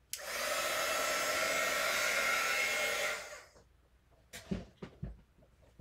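Handheld blow dryer switched on and blowing steadily for about three seconds to speed the drying of wet watercolour paint, then switched off. A few soft knocks follow as it is set down.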